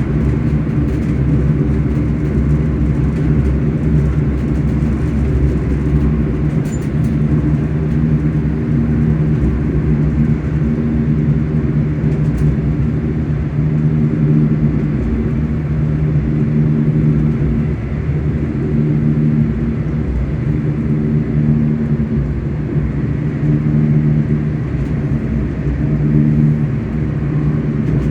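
ScotRail Class 385 electric multiple unit's traction motors humming steadily under a low running rumble as the train travels along.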